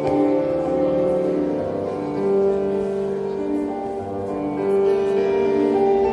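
Instrumental music: a slow melody of long held notes over a chordal accompaniment.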